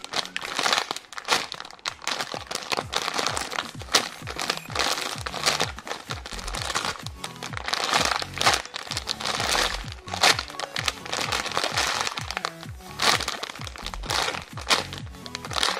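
Crinkling, crackling sounds of a jumbo foam squishy toy, a unicorn ice cream squishy, being squeezed and handled close to the microphone, over background music with a steady bass beat.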